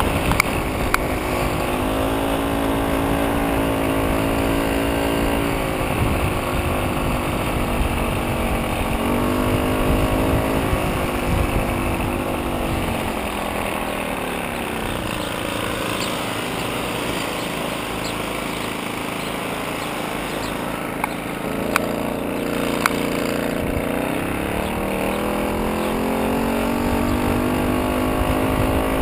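VéloSoleX moped's small two-stroke engine running under way, its pitch sagging through the middle and rising again near the end as the revs change. Wind rumble sits on the microphone throughout.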